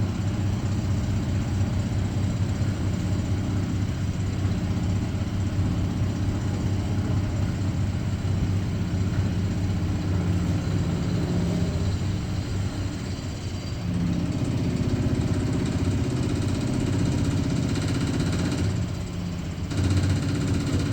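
CNC milling machine running with a steady mechanical hum. About 14 seconds in, a higher tone joins the hum, and near the end the sound dips briefly before coming back.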